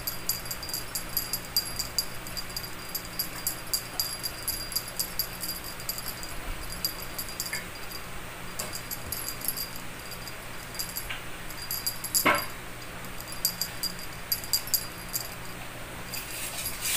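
Small bell on a cat teaser toy jingling in quick irregular shakes, busiest for the first ten seconds and more scattered after. A single thump about twelve seconds in is the loudest sound.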